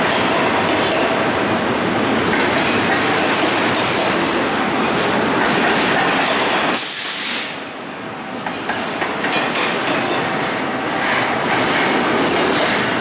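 Double-stack intermodal freight cars of a passing train rolling by close at hand: a steady rumble and clatter of steel wheels on the rails. The noise drops briefly about seven seconds in, then picks up again.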